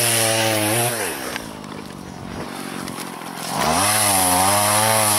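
Two-stroke chainsaw revved up, dropping back to idle about a second in, then opened up again about three and a half seconds in to saw through fallen birch trunks, its pitch sagging under the load of the cut.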